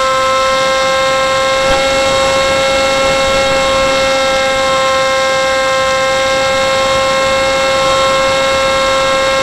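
Motor and propeller of an FPV flying wing whining steadily at constant throttle, heard from the onboard camera, with a hiss of rushing air beneath it.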